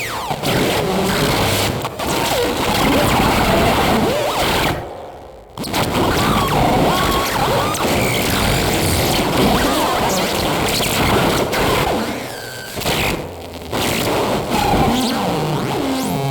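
Experimental noise music: a loud, dense, cluttered wash of noise with faint gliding tones, dropping out suddenly for about half a second around five seconds in and dipping again briefly near thirteen seconds.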